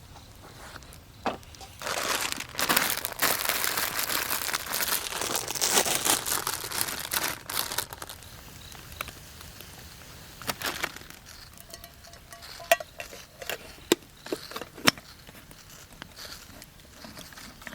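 Crinkly material being crumpled and handled for several seconds, a dense rustling crinkle, then dying away into scattered light clicks and taps.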